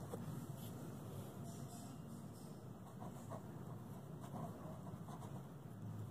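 Faint scratching of a pen writing on paper, in a few short strokes, over a low steady hum.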